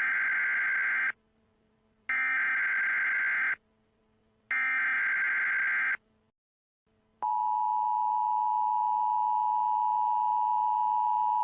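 Emergency Alert System tones: three harsh digital SAME header bursts, each about a second and a half long with short gaps between. About seven seconds in, the steady two-tone EAS attention signal begins, the alert that precedes an emergency broadcast message.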